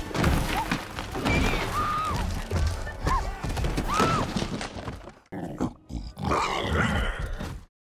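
Movie action soundtrack of a dinosaur stampede: orchestral score over heavy rumbling and crashing impacts, with a few short arching animal cries. It cuts out abruptly near the end.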